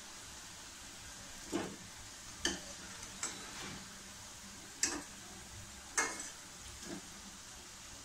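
Oil sizzling steadily around breaded paneer balls deep-frying in a steel pan, with a metal slotted spoon clinking against the pan about six times as the golden balls are scooped out.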